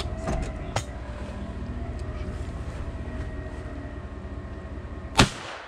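Steady low rumble of an idling vehicle engine, then a single loud shotgun shot about five seconds in.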